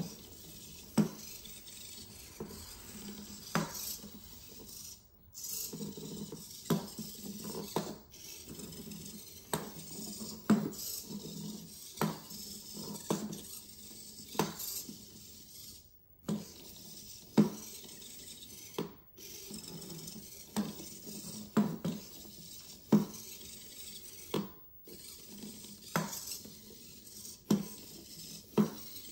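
Servo-driven legged robot stepping and turning on a wooden floor: its plastic feet clack against the boards at irregular intervals, roughly once a second or two, over a steady low hum from its hobby servos.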